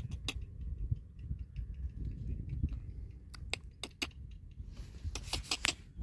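Low rumbling wind noise on the microphone, with scattered sharp clicks and ticks and a quick run of them about five seconds in.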